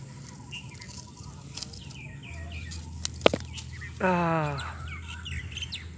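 A chicken gives one short, loud call falling in pitch about four seconds in, over small birds chirping. A single sharp click comes just before it.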